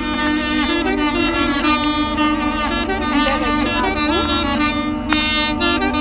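An ensemble of duduks playing a melody together over a steady held low drone note.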